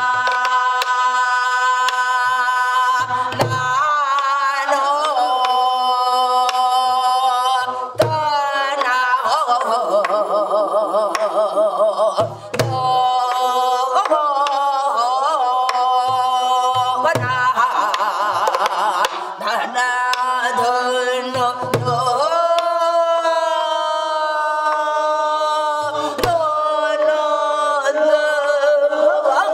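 A woman singing Korean gueum, wordless vocables in a pansori-style voice, with long held notes and wide, shaking vibrato. She is accompanied by strokes on a buk barrel drum, landing every few seconds.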